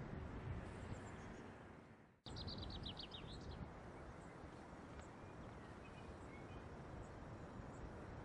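Steady outdoor wind noise on the microphone. It fades almost to nothing about two seconds in and cuts back in. A small bird then gives a quick run of high chirps, and faint chirps follow later.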